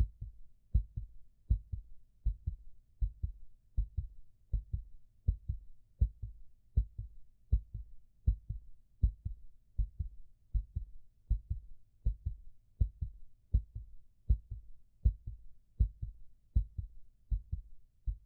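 Heartbeat sound effect: steady low thumps, about eighty a minute.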